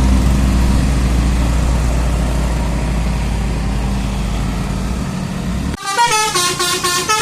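A bus engine's steady low rumble; about six seconds in it cuts off abruptly and a telolet basuri multi-tone bus horn starts playing a tune of changing notes.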